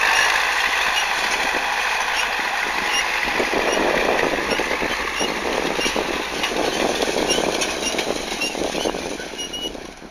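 DT-75ML crawler tractor's diesel running as it tows a hitch of SZ-3.6 grain drills past, with the drills' metal parts and drag chain rattling as they roll over the soil. The sound fades near the end as the rig moves off.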